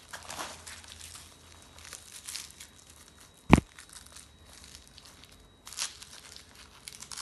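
DNIPRO Gen2 tourniquet being tightened on an upper arm: the strap rustles and scrapes as it is pulled and the windlass is turned and secured. One sharp click stands out about three and a half seconds in.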